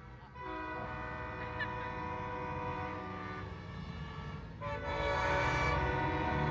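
Semi-truck air horns blowing long held blasts. The first starts about half a second in and lasts some four seconds, and a louder one begins near the five-second mark. Low engine rumble grows underneath toward the end.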